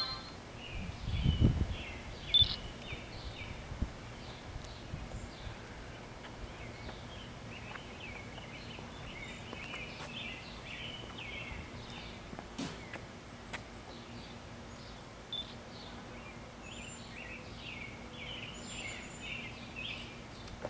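Small birds chirping and trilling on and off over steady outdoor background noise. A brief low rumble comes about a second in, and a few faint clicks are scattered later.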